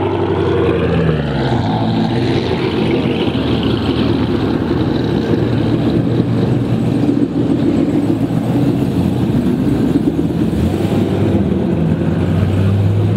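Modified car engines revving and running as cars pull away from the meet one after another, the revs rising and falling near the start, then a steady deep rumble that climbs again near the end.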